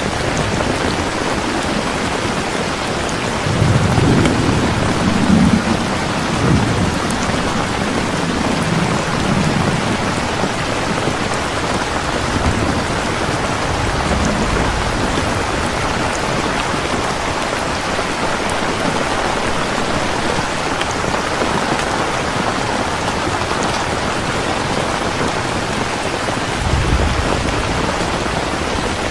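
Heavy rain falling steadily, with rolls of thunder rumbling low from about three and a half seconds in to about ten seconds in, and a shorter rumble near the end.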